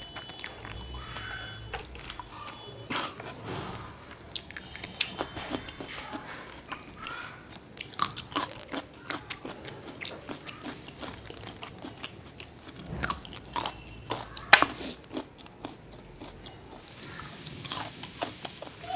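Close-miked eating: chewing and biting a mouthful of noodles, with wet mouth clicks, smacks and crunches in irregular runs.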